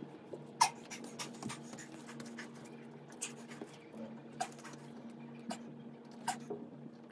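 Short, sharp breaths puffed out about once a second by a man holding a forearm plank, over a steady low electrical hum.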